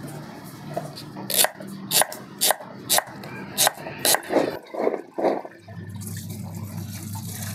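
Kitchen knife chopping young taro stalks on a wooden cutting board, sharp cuts about two a second. Near the end, water running from a hose over the cut stalks in a basket as they are rinsed.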